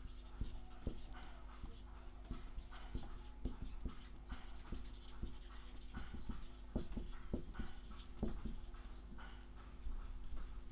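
Marker pen writing on a whiteboard: a run of short, irregular scratchy strokes as letters are formed, over a steady low electrical hum.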